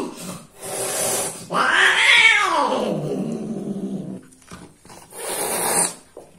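Domestic cat caterwauling as a mating pair separate: a short hiss, then a yowl that falls in pitch into a low growl, and a second hiss near the end.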